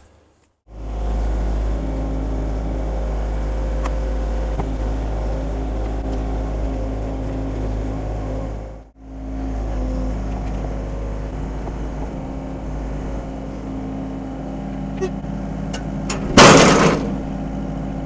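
Hyundai mini excavator's diesel engine running steadily while the machine lifts and carries a large log, the sound dropping out briefly about halfway. A short, loud burst of noise comes near the end.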